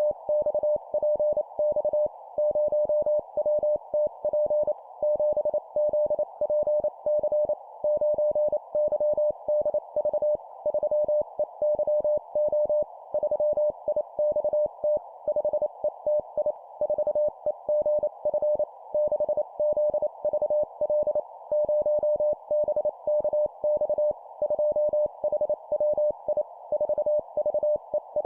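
Morse code (CW) sent at 25 words per minute: a single steady pitched tone keyed on and off in rapid dots and dashes, in four-character groups of a number followed by three letters, with a faint hiss underneath.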